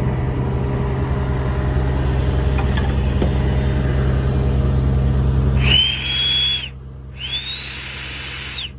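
A Miller Enpak unit running steadily, then about six seconds in two blasts of compressed air from the open end of its air-compressor hose, which has no fitting on it. Each blast hisses with a rising whistle, and the second is longer.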